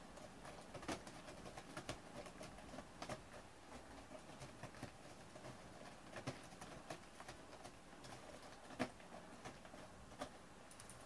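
A cat's claws picking and scraping at a corrugated cardboard scratcher, making faint, irregular clicks and scratches.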